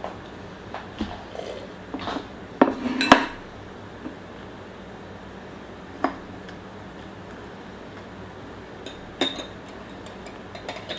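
Eating utensils clinking and knocking against a dish in scattered strokes: several close together a few seconds in, then single clinks a few seconds apart.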